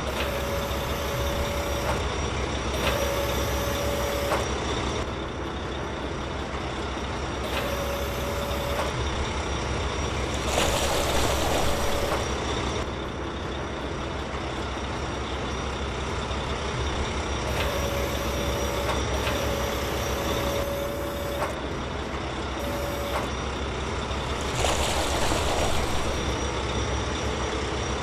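Heavy machinery sound effects: a diesel excavator engine runs steadily. A steady hydraulic whine comes and goes several times, each time for one to two seconds, and there are two louder spells of hissing.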